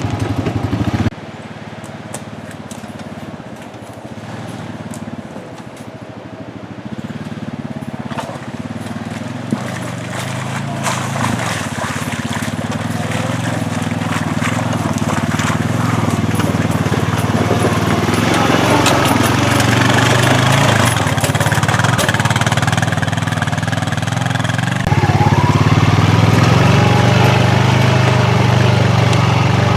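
Honda Pioneer 500 side-by-side's engine running while the machine drives along, growing gradually louder, with sudden jumps in level about a second in and again near the end. Scattered clicks and knocks sound over the engine.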